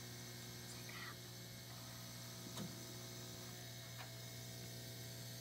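Steady low electrical hum from the electronics bench equipment, with a few faint clicks.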